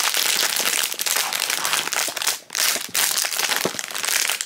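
Foil blind bag crinkling loudly as hands tear it open and pull a plush toy out, with a brief pause about two and a half seconds in.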